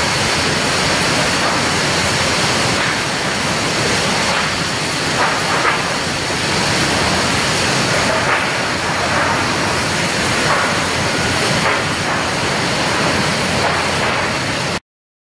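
Steady, loud industrial noise of lumber-mill machinery running inside the mill building, with faint knocks and clatter through the middle.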